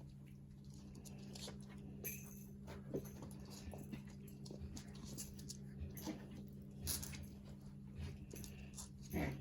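Havanese puppies moving about, with soft scratches, clicks and rustles over a steady low hum, and a short squeak near the end.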